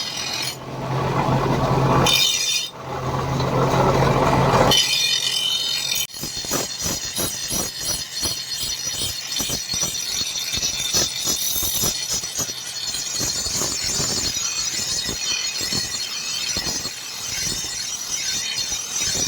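Leaf-spring steel being worked with metalworking tools: a powered tool runs twice for about two seconds each, then quick repeated strokes on the metal go on steadily.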